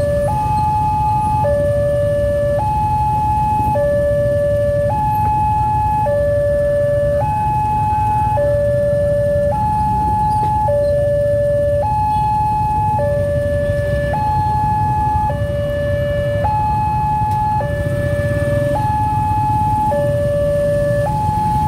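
Electronic warning alarm of a railway level-crossing signal, sounding as the barrier closes for an approaching train. It alternates steadily between a high and a low tone, each held about a second. Road traffic rumbles underneath.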